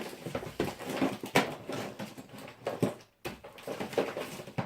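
Computer parts being handled and rummaged through in a box: irregular rustling, knocks and clatter of plastic and metal items, stopping briefly about three seconds in.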